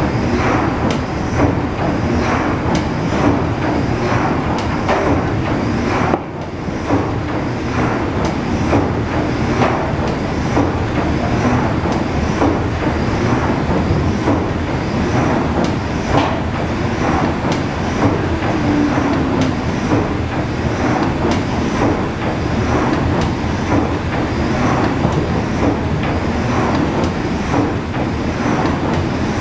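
PS Waverley's 1946 Rankin & Blackmore three-cylinder triple-expansion steam engine running, its cranks and rods turning with a steady, rhythmic mechanical beat of repeated knocks.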